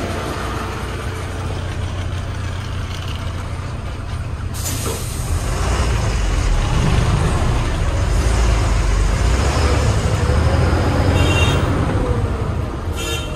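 Heavy truck's diesel engine running steadily, then a sudden hiss of air from the air brakes about four and a half seconds in. After it the engine gets louder as the truck pulls away.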